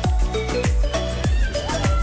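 Upbeat electronic dance music with a steady kick-drum beat, about two beats a second, under a short plucked melody.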